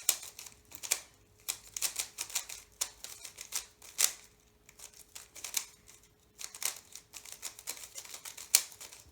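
Quick, uneven clicking and clacking of a MoYu MoFang JiaoShi magnetic 3x3 speed cube being turned. Its layers snap into place with several clicks a second, with a short pause about halfway through.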